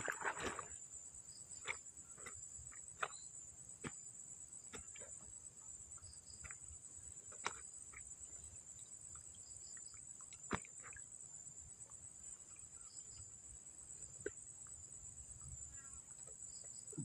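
A steady, high-pitched chorus of crickets or similar insects, with scattered faint clicks and taps; the sharpest click comes about ten seconds in.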